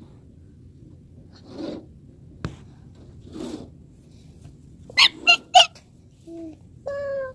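Snow shovel scraping across snowy brick pavers several times, a couple of seconds apart. About five seconds in come three loud, sharp yelps in quick succession. Near the end there is a short high whining cry.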